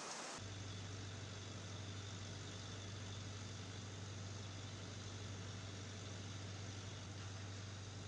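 A steady low hum with faint hiss over it, starting abruptly about half a second in as a louder rushing noise cuts off.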